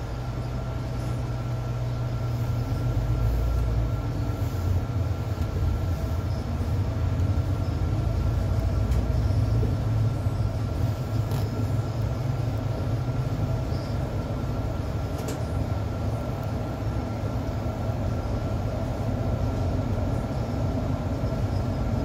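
Cabin sound of a Mercedes-Benz city bus pulling away and driving along a street: a low rumble from the engine, drivetrain and tyres under a steady high whine. It grows louder over the first few seconds as the bus gathers speed, then holds steady.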